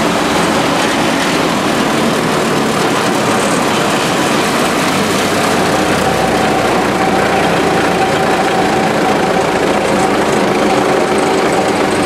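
1995 Brush Bandit Model 250 wood chipper running steadily, its engine and spinning chipper drum making a loud, even mechanical drone. A steady whine joins in about halfway through.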